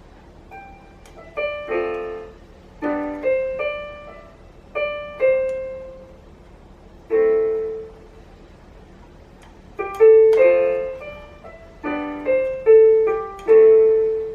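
RiZKiZ electronic keyboard playing in a piano voice: chords and short melody phrases played haltingly, in separate groups with pauses between them, by a beginner still snagging on the chord changes. The notes ring and fade after each group, and the last few groups are the loudest.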